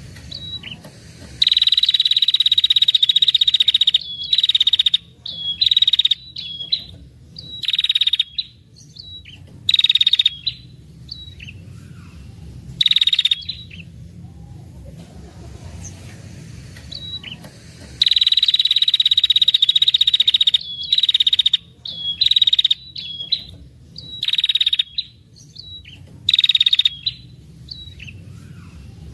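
Female ashy tailorbird (red-headed prenjak) giving long buzzing trills, two of them lasting two to three seconds each, with shorter trills and single sharp chirps in between. This is the excited female 'ngetir' trill used as a lure call to draw in males.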